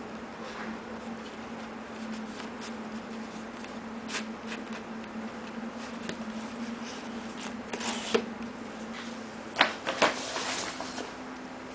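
Paper packaging rustling with light clicks and taps as it is handled and unwrapped, with a few sharper clicks near the end, over a steady low hum.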